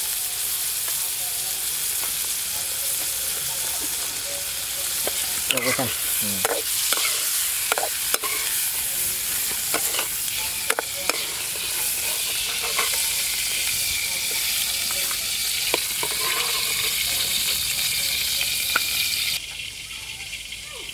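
Hot oil sizzling steadily around banana worm larvae frying in a metal pan, with a metal spatula stirring and scraping against the pan in irregular strokes from about five seconds in. The sound cuts suddenly to a quieter hiss near the end.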